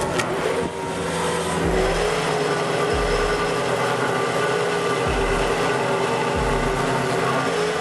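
Heavy forestry machine's engine running steadily with a pitched drone, and low thumps about every second or two.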